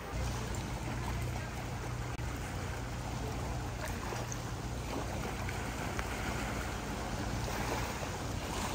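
An engine running steadily, a low even hum under a constant rushing wash of noise.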